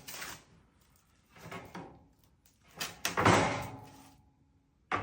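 Acacia wood chair parts being handled and fitted together. Three bouts of knocking and scraping, the loudest about three seconds in.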